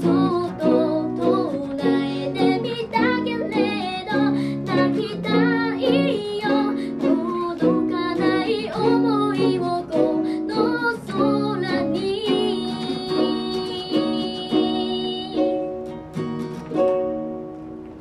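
Unamplified plucked-string accompaniment playing an instrumental outro of repeated chords. About two-thirds through, a chord is held and rings out, then a few softer final notes fade away near the end.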